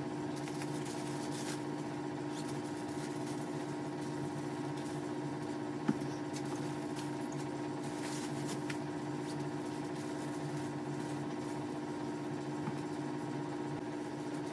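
A steady drone made of several fixed tones, with light rustles and a sharp click about six seconds in.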